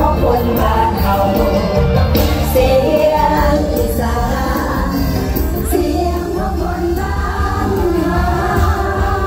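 Live mor lam band music played loud through a stage sound system, with singers' voices over a strong bass.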